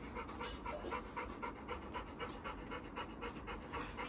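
Yellow Labrador retriever panting with its mouth open and tongue out, in a quick, even rhythm of about four to five pants a second.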